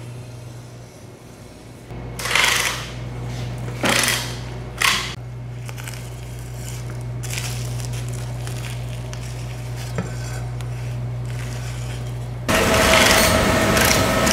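Heavy fish knife cutting and scraping through a bluefin tuna carcass: three sharp scraping strokes a couple of seconds in, then lighter cutting over a steady low hum. Near the end a louder, even rush of background noise comes in suddenly.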